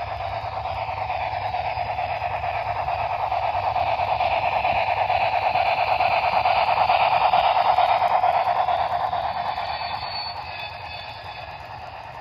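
Model freight train rolling past close by: a steady clattering rush of wheels on track that builds, peaks about two-thirds of the way through, then fades, with a faint high whine near the end.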